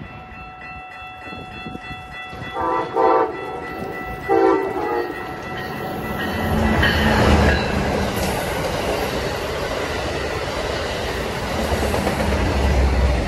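Amtrak passenger train led by a Siemens Charger locomotive sounding short horn blasts about three and four and a half seconds in as it approaches. It then runs past close by with a loud, steady rush of wheels and engines.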